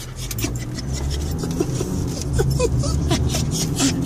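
Dog whining anxiously in short, high, rising whimpers, several times, over the steady low rumble of a moving car.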